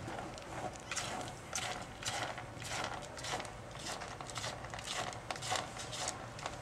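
Kitten pawing and scratching in pellet cat litter: a string of short, scratchy rustles and rattles of the pellets, about one or two a second.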